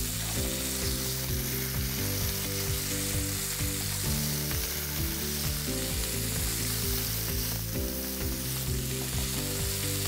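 Sea scallops searing in hot grapeseed oil in a cast iron pan over high heat: a steady sizzle.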